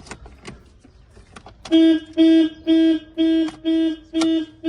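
Car alarm going off in a 1995 BMW 750iL as power reaches it: a loud electronic beep at one steady pitch, repeating about two to three times a second, starting nearly two seconds in after a few faint clicks.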